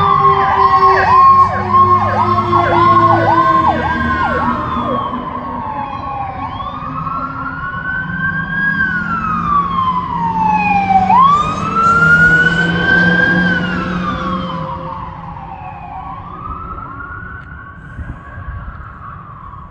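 Fire truck sirens going past: an electronic wail rising and falling every few seconds, with a fast yelp sounding over it for the first few seconds. The sound fades as the trucks draw away.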